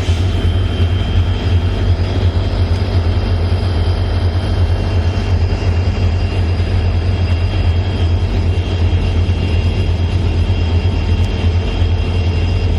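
Loaded freight train hauled by twin EMD WDG4 (GT46MAC) diesel locomotives on the move: a steady heavy low rumble with faint, steady high-pitched whines over it.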